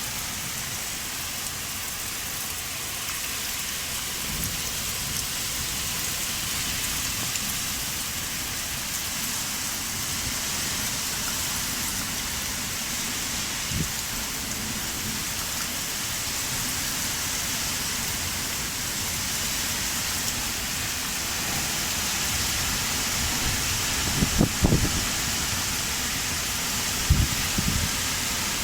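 Heavy downpour, rain pouring and splashing steadily, with a few short low thumps about halfway through and again near the end.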